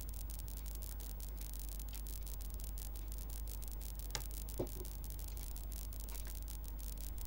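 Steady low electrical hum with faint hiss, and two light clicks a little after four seconds in as a hand moves chicken pieces in a glass bowl of curry.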